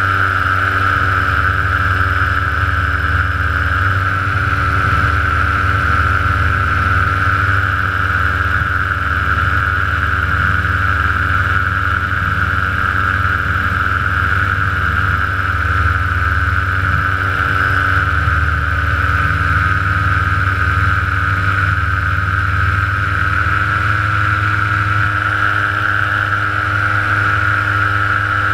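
Small aircraft's engine and propeller running steadily in flight, heard close up from an onboard camera: a continuous drone with a strong high hum over a low rumble. The engine note shifts slightly about 24 seconds in.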